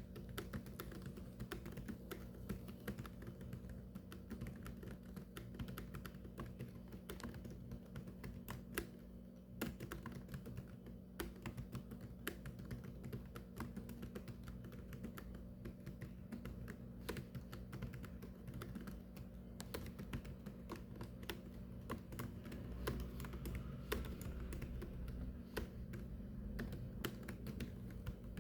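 Continuous fast typing on a keyboard: rapid, irregular keystroke clicks with short pauses, over a low steady hum.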